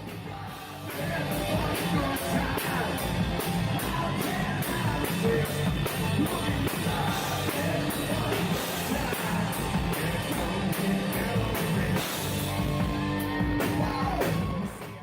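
Hard rock music with a singer over a steady drum and cymbal beat. It gets louder about a second in and drops out abruptly at the end.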